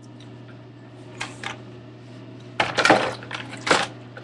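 Handling noise from a cardboard-and-plastic doll box being moved about: a few short rustling, clattering bursts, the loudest two about three seconds in, over a steady low hum.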